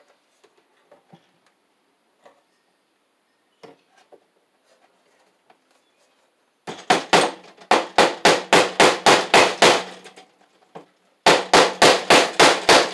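Hammer tapping cable staples into plywood to fasten electrical cable. Two runs of rapid blows, about five a second: the first starts about seven seconds in, the second about a second after it stops. Faint handling clicks come before the first run.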